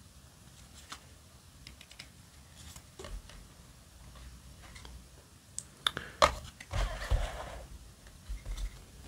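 Trading cards being handled in the hands: scattered small clicks and taps as cards are shuffled through a stack. There is a louder cluster of snaps about six seconds in, then a brief sliding rustle, and a few soft taps near the end.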